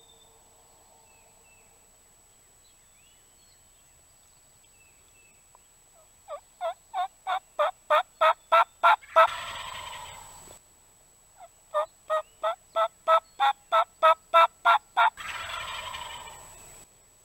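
Wild turkeys calling: a run of about ten turkey yelps, getting louder, followed straight away by a rolling gobble, and then the same yelp run and gobble again. The yelps are the loudest sounds.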